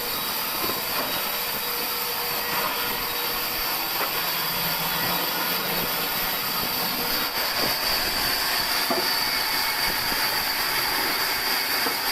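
Sawmill saw machinery running with a steady, high-pitched whir and hiss, with a few faint clicks.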